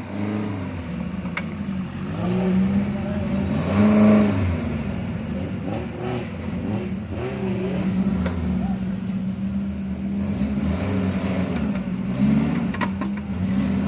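Suzuki Jimny off-road 4x4 engine revving under load as it climbs a muddy slope, the revs surging up and falling back again and again, loudest about four seconds in.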